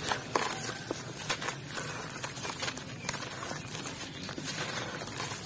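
Hands squeezing and crumbling a dry chunk of gritty black concrete mix: crunching, with a dense run of small crackles as crumbs and powder patter down into a plastic basin.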